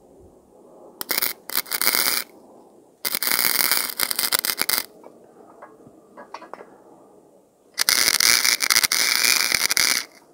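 MIG welder arc crackling in three bursts of one to two seconds each, the first one stuttering, as short tack welds are laid on a steel exhaust tube.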